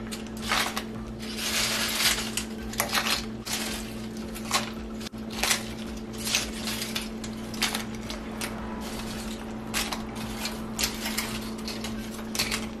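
Crisp fried corn tortilla chips being picked up by hand and dropped into a skillet of simmering red sauce: irregular dry crackles, rustles and light clatters, over a steady low hum.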